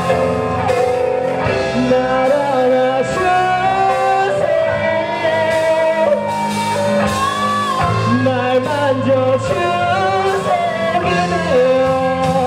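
Live rock band playing a song: electric guitars and bass over a drum kit, with a melody bending in pitch on top.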